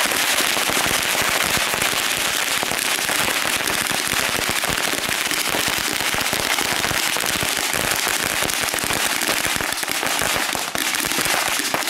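A ground firework going off in a dense, continuous run of rapid small pops and crackles, stopping near the end.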